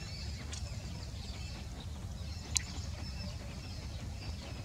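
Birds chirping and calling over a steady low rumble, with a single sharp click about two and a half seconds in.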